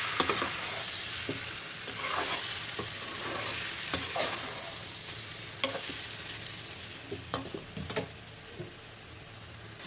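Besan katre frying and sizzling in masala in a kadhai while a spatula stirs them, knocking against the pan now and then. The sizzle grows quieter in the last few seconds.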